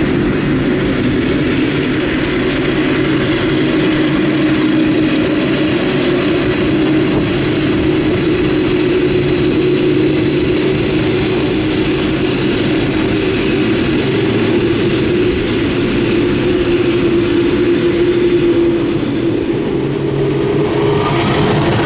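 A KLM Boeing 747-400's four turbofan jet engines running with a loud, steady hum and rush of jet noise as the jumbo moves along the ground. Near the end a whine rises in pitch.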